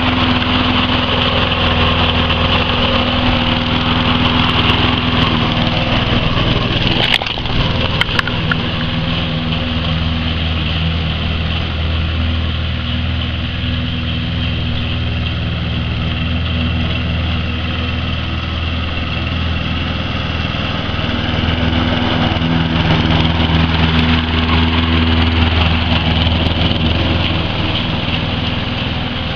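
Petrol walk-behind lawn mower engine running steadily with its throttle held down, its note shifting slightly in pitch and loudness. A brief knock about seven seconds in.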